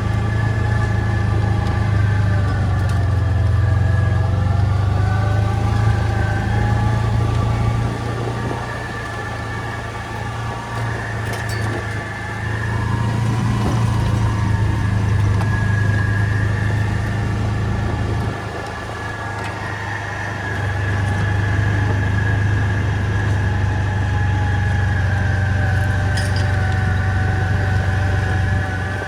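A vehicle engine running at a steady speed, its hum easing off briefly twice before picking up again.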